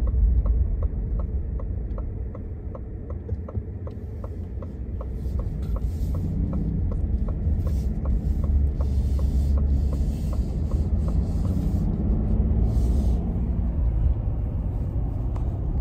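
Steady low road and engine rumble inside a moving car's cabin, with a regular light ticking at about three a second that stops about eleven seconds in.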